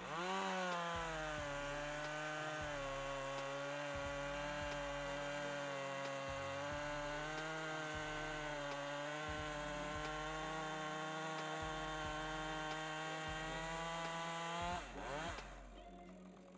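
Husqvarna 545 two-stroke chainsaw revving up and cutting through an oak log at steady full throttle on a freshly hand-filed round-file chain. About fifteen seconds in, the engine pitch dips and rises briefly, then falls away as the throttle is released.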